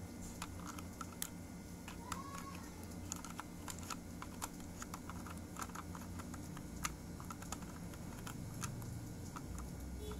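Light, irregular clicks and taps of small toys being handled: toy figures being set into a model sports car's open cockpit.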